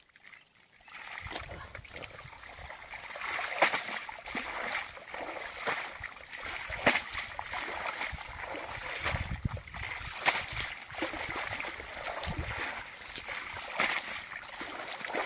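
Water splashing and trickling, starting about a second in, with repeated sharp, irregular splashes.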